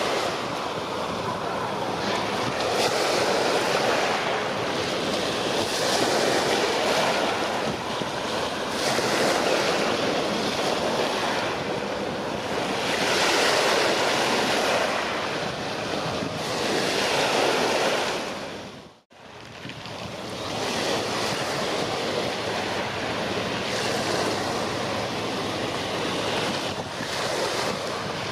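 Wind buffeting the camera microphone over the wash of waves on the shore, swelling and easing every few seconds. About two-thirds of the way through, the sound briefly fades out to near silence and then comes back.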